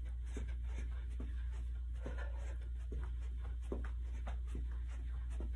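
Light, even footfalls of sneakers on carpet from jogging in place with butt kicks, about three steps a second, over a steady low hum.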